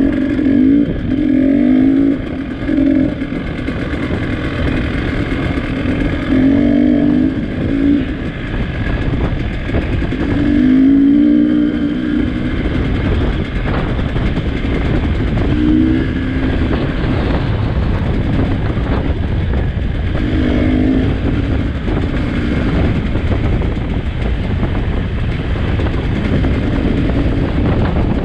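Trail motorcycle engine running on a rough track, its note rising and falling in surges every few seconds as the throttle is opened and closed, over a steady loud low rumble.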